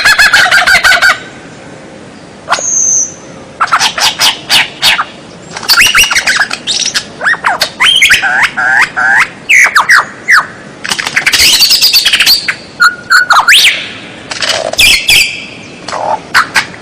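A songbird singing a loud, varied song. It opens with a fast rattling trill that stops about a second in. After a short pause come a brief high whistle, sharp clicks, and a long run of quick down-slurred notes and chatter.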